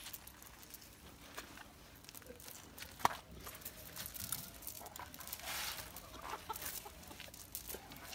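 Chickens clucking faintly, with a single sharp knock about three seconds in.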